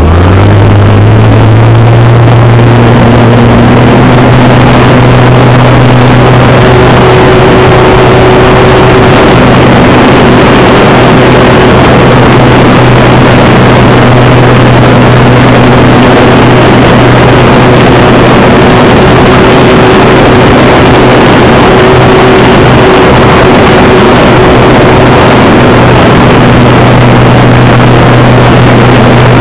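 Motor and propeller of a radio-controlled float Cessna 182 model running loud and steady as picked up by its onboard camera, over a constant rushing noise. The pitch climbs in the first second as the throttle opens for the takeoff from the water, then holds steady through the climb-out.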